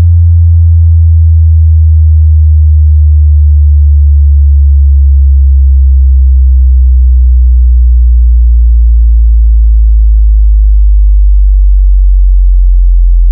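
Very loud low bass test tone, a pure sine wave sliding slowly and steadily down in pitch from deep bass toward sub-bass, used to test a speaker or subwoofer for vibration.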